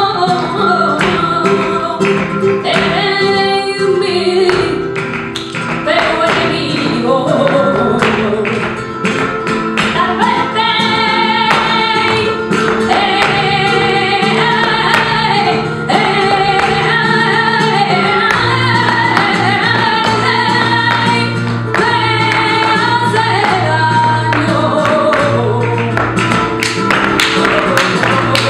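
Live flamenco: a woman singing cante over flamenco guitar, with sharp percussive strikes running through it that come thickest near the end.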